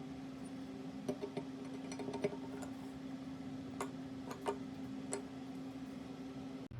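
A handful of scattered light clicks and taps over a steady low hum.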